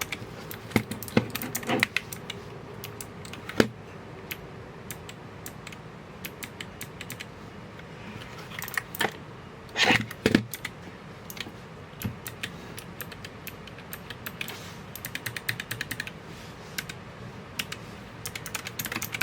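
Typing on a Keychron K7 low-profile mechanical keyboard with clicky blue switches: irregular key clicks with a few louder strikes, and quicker runs of keystrokes near the end.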